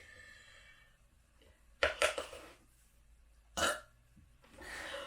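Short, abrupt burps: a loud one about two seconds in, a second shorter one a second and a half later, then a softer, longer one near the end.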